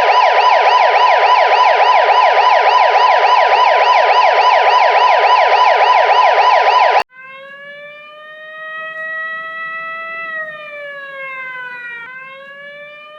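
Two emergency-vehicle sirens in turn. A loud, fast electronic yelp sweeps up and down about four times a second and cuts off abruptly about seven seconds in. Then a quieter slow wail rises, falls and rises again.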